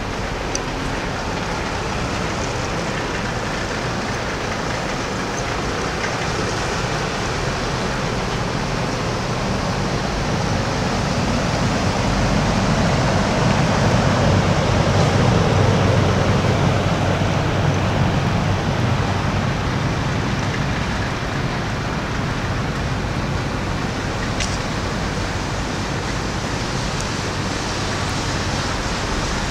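City street ambience: a steady hiss of road traffic, swelling as a vehicle passes about halfway through and then fading back.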